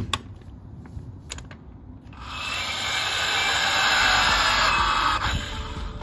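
Chicago Pneumatic CP8613WT cordless torque wrench running in forward, tightening a truck wheel lug nut: a couple of clicks, then a steady motor-and-gearbox whir that grows louder for about three seconds and cuts off sharply about five seconds in as the tool shuts off at its 500 foot-pound setting.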